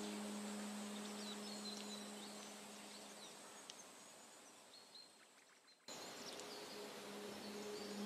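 The low, sustained tone of relaxing ambient music fades out over the first few seconds, leaving faint high bird chirps over a quiet hiss. About six seconds in the background ambience cuts back in abruptly, and the low tone swells again near the end.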